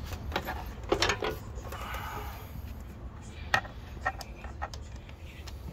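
Screwdriver tightening a hose clamp on the intake tubing: irregular small metallic clicks, a cluster about a second in and more from about three and a half seconds, over a low steady hum.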